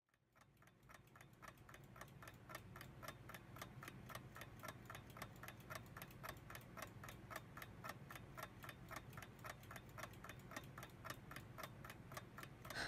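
Clock ticking quickly and evenly, about four to five ticks a second, faint and fading in over the first second.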